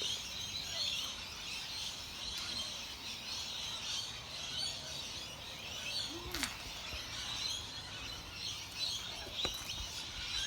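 Outdoor ambience of many small birds chirping in a steady chorus, with a couple of faint knocks partway through.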